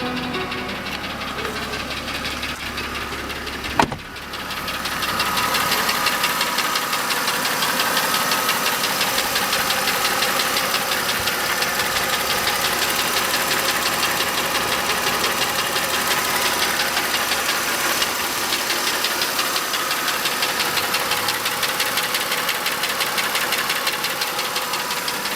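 Mercedes M272 2.5-litre V6 engine running with a steady, rapid knock. The knock is the sign of scored (scuffed) cylinder walls in the left bank. A single sharp click comes about four seconds in, after which the engine sounds louder.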